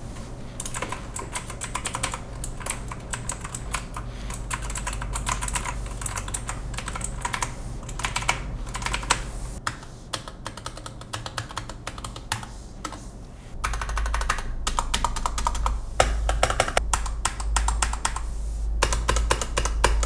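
Rapid typing on a Keychron mechanical keyboard, a dense run of key clicks. It grows louder about two-thirds of the way through.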